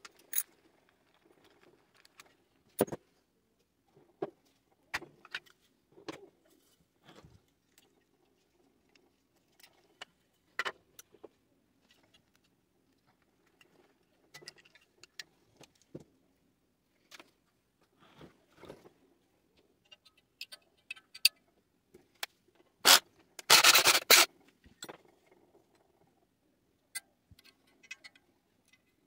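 Scattered metallic clicks, clinks and light scrapes of air-conditioner parts and tools being handled during disassembly for scrap. About three-quarters of the way through comes a loud, harsh scraping noise lasting about a second and a half.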